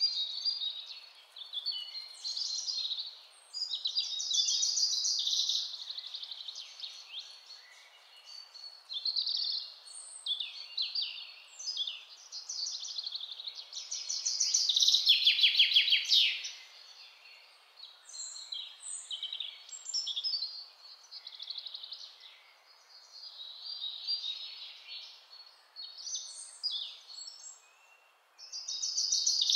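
Stock recording of birdsong: a series of chirping and trilling phrases with short gaps between them, and a loud, fast trill about halfway through, over a faint steady hiss.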